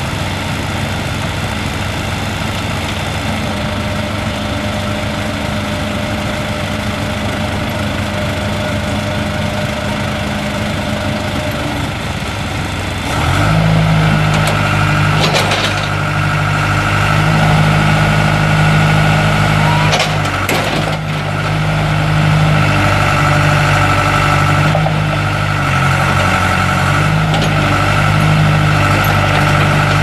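John Deere 300D backhoe loader's diesel engine idling, then about 13 seconds in it speeds up and labours under hydraulic load as the backhoe stabilizer legs and boom are worked, its note dipping and recovering several times. A couple of sharp knocks come through while the boom is moving.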